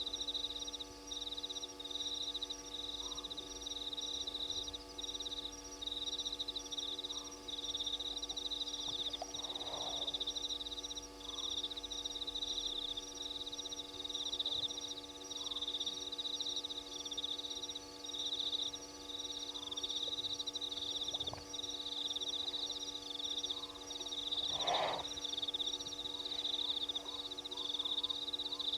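Nighttime animal chorus at a waterhole: a dense, high-pitched pulsing trill that runs with only brief gaps, with a short lower call repeating every few seconds and a louder single call twice, once about a third of the way in and once near the end. A steady electrical hum lies underneath.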